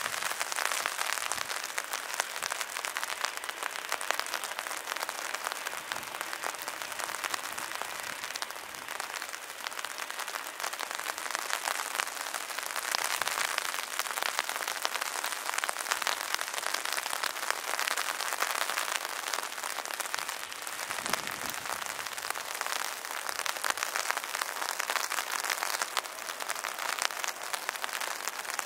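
Heavy rain pattering steadily, a dense hiss of many close drop impacts.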